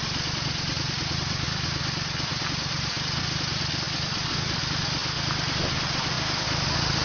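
GPX 150GR motorcycle engine running steadily while riding, under a constant rush of wind and road noise.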